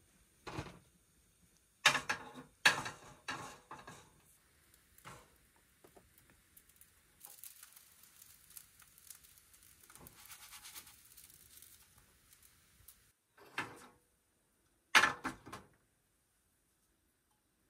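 Objects being handled: irregular knocks and short clattering runs, with a soft hiss for several seconds in the middle.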